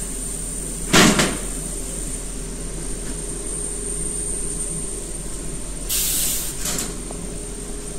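Jurmet core cutter running with a steady machine hum. A loud clunk comes about a second in, and a short high hiss comes around six seconds in, followed by a fainter one.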